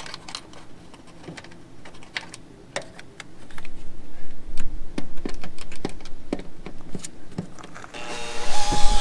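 Scattered clicks, scrapes and knocks of tools and metal parts being handled, then a power drill starts whirring near the end, driving a screw to draw the water heater forward.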